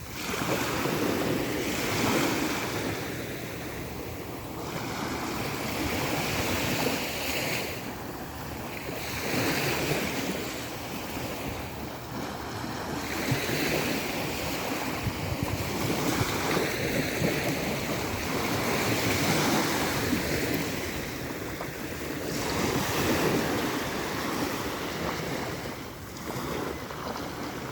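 Sea surf washing onto a beach, a steady rush that swells and ebbs every few seconds, with wind buffeting the microphone.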